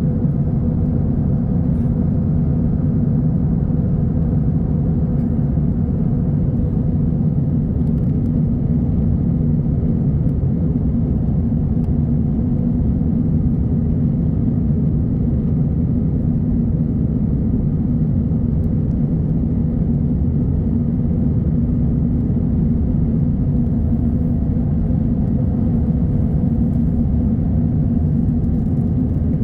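Steady low drone inside a jet airliner's cabin in flight: engine and airflow noise with an even hum.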